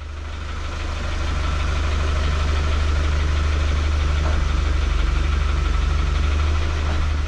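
Engine idling steadily, swelling in over the first second.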